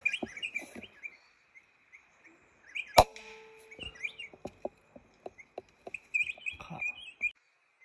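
Small birds chirping, then about three seconds in the single sharp crack of a PCP air rifle shot, the loudest sound, with a brief ringing tone after it. A run of light clicks and knocks follows over the next few seconds, over a steady high-pitched tone.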